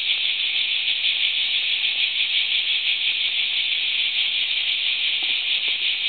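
Cicadas singing in a steady, high-pitched buzzing chorus that doesn't let up.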